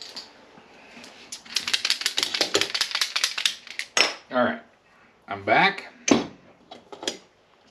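Aluminium bar stock being handled on a wooden workbench: a rapid metallic rattling clatter for about two seconds as pieces knock together, then several separate clanks, some left ringing, as bars are picked up and set down.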